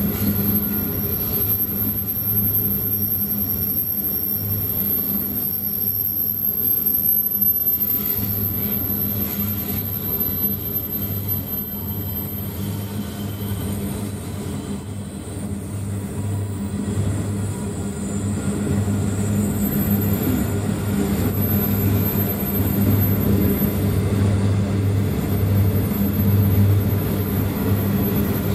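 Empty iron ore wagons rolling past on their bogies, steel wheels on the rails giving a low rumble that swells and fades unevenly. It dips a little about halfway through and builds again toward the end.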